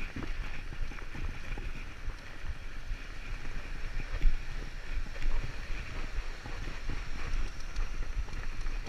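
Fatbike being ridden over packed snow: fat tyres rolling and crunching, with steady wind rumble on the camera's microphone.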